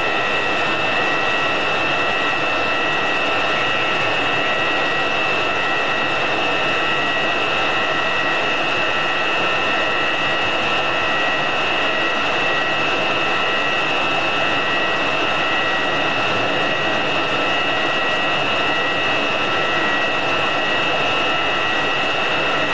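Dassault Mirage III's ATAR 09C turbojet running steadily at ground idle: a constant rushing jet noise with a high whine of several steady tones.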